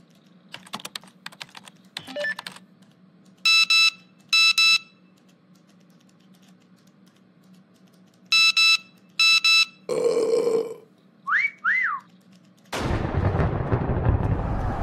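Computer keyboard clicks, then two pairs of short electronic beeps, a brief burst of noise, two short whistles that rise and fall, and a loud rushing noise that starts near the end.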